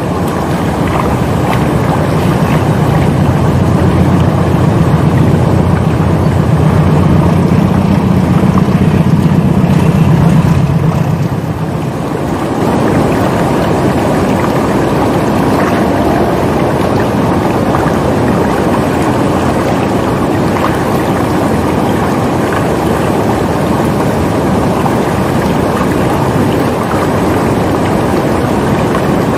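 Shallow, fast river current rushing over stones and gravel: a loud, steady rush of water. A deeper rumble sits under it for the first ten seconds or so, then eases.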